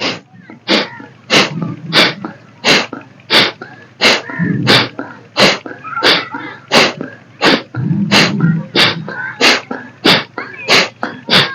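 Kapalabhati breathing: a person's sharp, forceful exhalations through the nose with the mouth closed, evenly paced at about three every two seconds.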